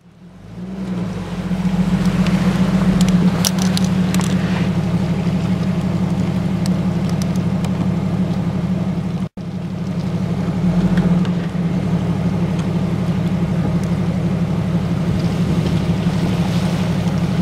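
A Jeep Wrangler's engine running at low speed as it drives through a shallow creek crossing, over a heavy low rumble. The sound fades in at the start and drops out for an instant about nine seconds in.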